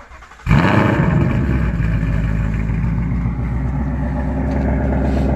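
2018 Ford Mustang GT's 5.0 L V8, with catless headers, an X-pipe and stock mufflers, cold-starting: brief cranking, then it fires about half a second in with a loud startup flare and settles into a fast idle.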